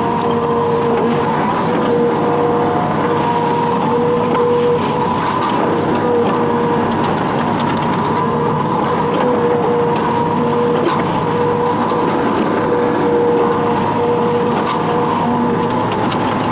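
Hitachi Zaxis 210F amphibious excavator running steadily under load, its whine fading in and out every second or two.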